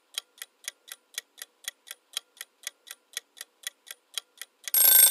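Clock-ticking countdown sound effect, about four even ticks a second, counting down the time to answer. Near the end it gives way to a sudden loud ringing bell, the time's-up signal.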